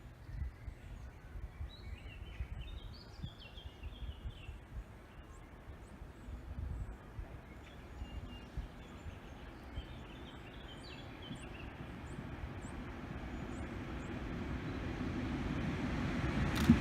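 A train approaching along the line, its noise growing steadily louder over the second half. Birds call twice over a low, uneven rumble earlier on.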